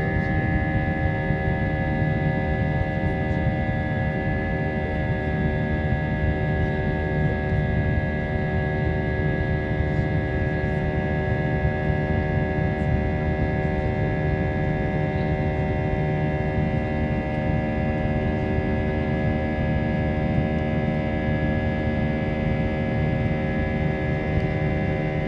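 Airbus A320 jet engines heard inside the passenger cabin during the climb: a steady low rumble with a chord of steady whining tones.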